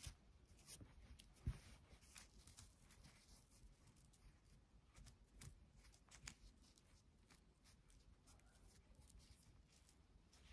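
Faint rustling and light clicks of nylon paracord being handled and threaded through an iron D-ring, with one sharper click about a second and a half in.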